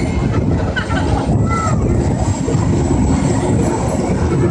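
Cliffhanger carnival ride running, a loud steady rumbling rush. Voices and a couple of short high cries come through about a second in.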